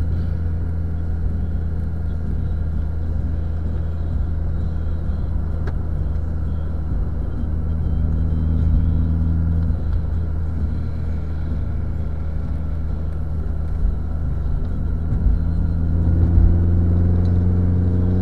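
A car being driven on the open road, heard from inside the cabin: a steady low drone of engine and tyre noise. Near the end a higher hum comes in and slowly rises.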